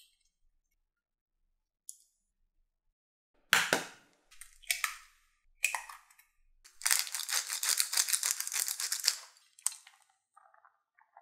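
Close-up kitchen handling sounds while eggs and cheese go onto a tortilla pizza. A sharp crack about three and a half seconds in, from raw eggs being cracked, then shorter cracks. A dense crinkling rustle of about two seconds follows, and near the end come small soft patters of shredded mozzarella falling onto the sauce.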